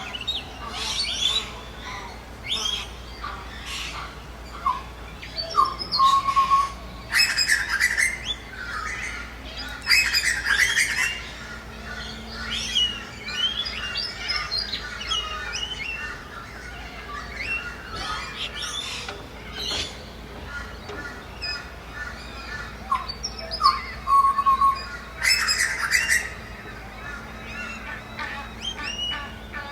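Mixed birdsong: many birds chirping and whistling, with loud, harsh squawks about seven, ten and twenty-five seconds in.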